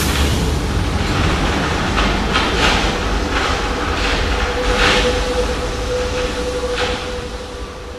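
RATP MF67 metro train pulling out of an underground station and running off into the tunnel: a steady rumble with a held tone, broken by several short louder bursts of noise, fading near the end.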